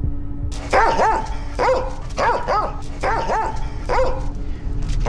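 A dog barking: short, high yapping barks, often in quick pairs, starting under a second in and repeating every half second or so, over a low steady hum.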